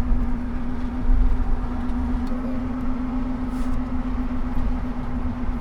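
Road noise of a moving car: a steady low rumble with one constant hum.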